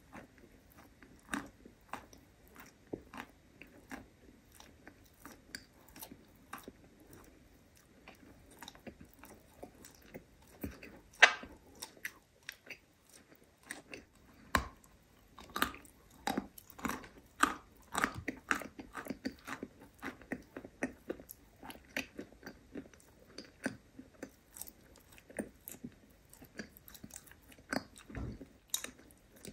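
Close-miked chewing and biting of a dry, crumbly white chunk: irregular crisp crunches and mouth clicks, with one sharper bite about eleven seconds in.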